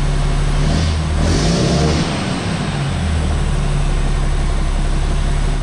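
Caterpillar C9 diesel engine of a Sterling truck running steadily, revved up once about a second in and then settling back to its steady run.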